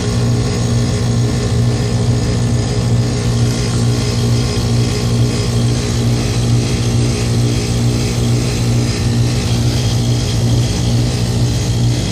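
Rheem Classic heat pump outdoor unit running in heat mode, its compressor giving a loud, steady low hum with a hiss over it. The unit is heavily iced over and has not gone into defrost.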